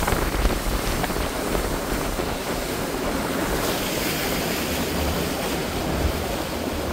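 Small open motorboat under way: a steady rush of water and spray along the hull, with wind buffeting the microphone.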